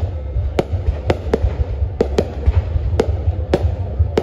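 Aerial fireworks bursting overhead: about eight sharp bangs at uneven intervals, over a continuous low rumble.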